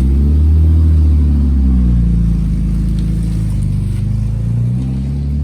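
BMW E36 M3's straight-six engine pulling away, its note rising and falling with the revs and easing off toward the end. The car has a newly replaced clutch.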